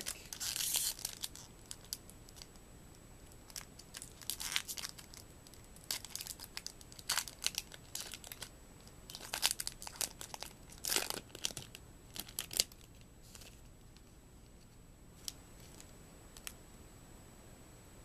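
A Magic: The Gathering booster pack's wrapper being torn open and crinkled, in irregular bursts of rustling with small clicks over the first dozen or so seconds, then only a few faint ticks.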